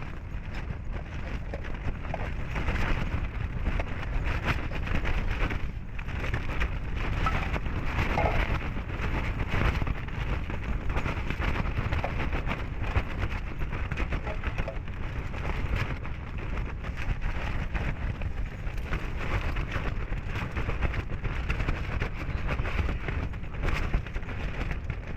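Wind rumbling on the microphone, with a dense crackling patter over it.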